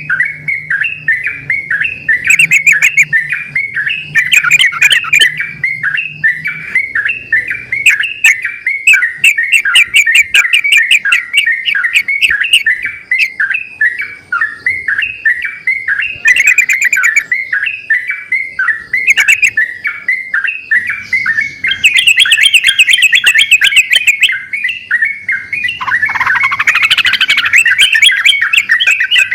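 Yellow-vented bulbuls (trucukan) singing loudly without pause, several birds answering one another with fast bubbling chirps, broken by rapid high trills here and there.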